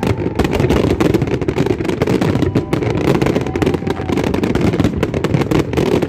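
Fireworks going off in a dense, continuous run of crackling bangs over a steady low rumble.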